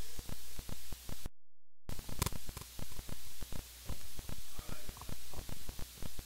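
Electrical hum and hiss from a live sound-system feed, cutting in and out repeatedly, with scattered faint clicks. The signal drops out completely for about half a second near the start.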